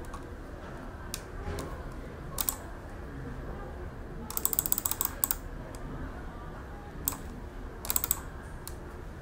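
Computer keyboard being typed on in short bursts of keystrokes: a few taps, a quick run of typing about four to five seconds in, then a few more clusters near the end.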